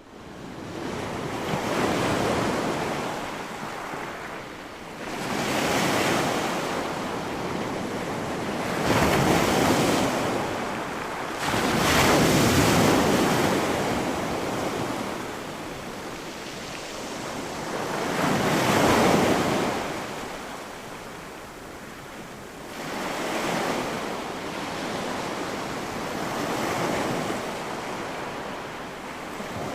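Sea waves breaking on a sandy beach, recorded close to the surf. The wash swells up and falls back every few seconds.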